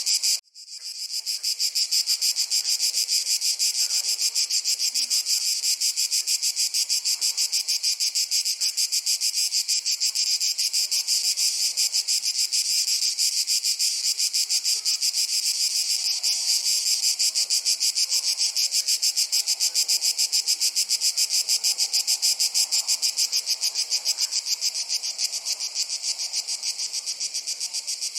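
A chorus of crickets chirping in a dense, rapid, even pulse. It drops out briefly just after the start and swells back within a couple of seconds.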